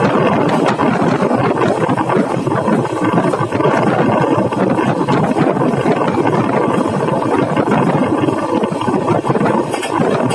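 Indian Railways passenger train, the 11302 Udyan Express, running along the track, heard from aboard: a steady, loud noise of wheels on rails and rushing air.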